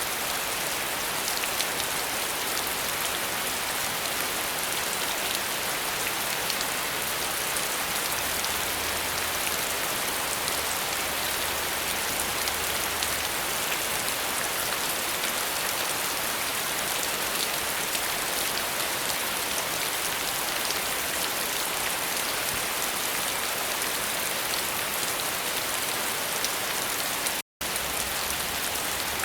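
Steady rain falling, an even dense hiss with fine patter of drops on surfaces. The sound cuts out completely for a split second near the end, then resumes unchanged.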